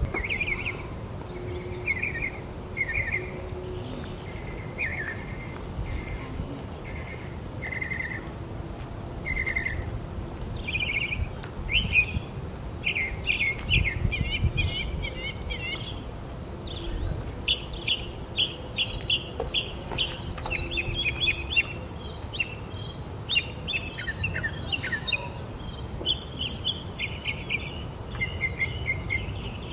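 Birds singing: short separate calls about once a second at first, then a dense run of quick overlapping chirps from about ten seconds in, over a low steady background rumble.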